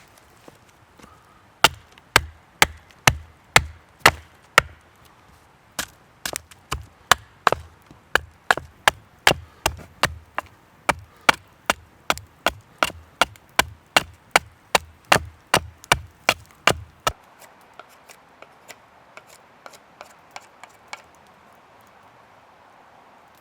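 Steady chopping on wood, about two sharp strikes a second, each with a dull thump. About two-thirds of the way through it changes abruptly to a few fainter, lighter taps.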